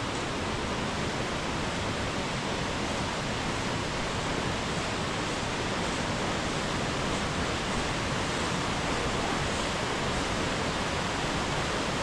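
Waterfall rushing, a steady even roar of falling water with no breaks.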